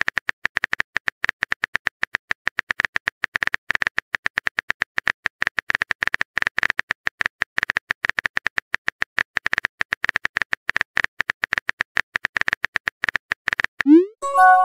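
Chat-story app's simulated keyboard typing sound: rapid, even clicks, about eight a second, as a long message is typed out. Near the end a rising swoop and a short chime mark the message being sent.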